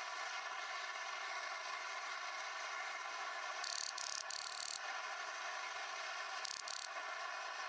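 Dry moulding sand hissing as it is dropped by the handful into wooden casting flasks around foam patterns, about three and a half seconds in for a second or so, and again briefly later. Underneath is a steady hum with many even tones, from a source that cannot be made out.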